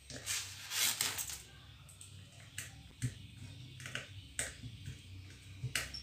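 Small handling sounds as a ceiling fan's capacitor, wires and plastic connector are fitted onto the motor: a rustle in the first second or so, then a few scattered light clicks.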